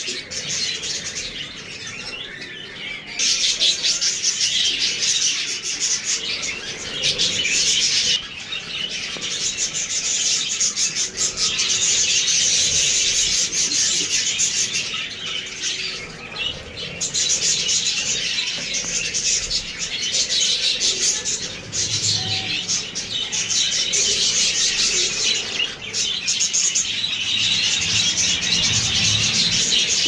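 Budgerigars chattering in a dense, continuous high warble, with wing flapping during a scuffle on a perch.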